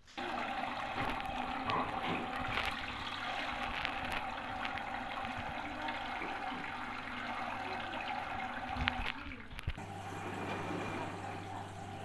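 Mains water rushing into the detergent drawer of an LG Direct Drive front-loading washing machine as it fills at the start of a wash, starting suddenly just after the beginning. About ten seconds in it gives way to a quieter trickle over a steady low hum.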